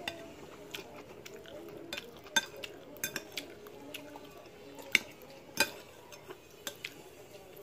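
Metal spoon and fork clinking and scraping against a bowl while scooping rice and food, with irregular sharp clicks; the loudest comes about five seconds in.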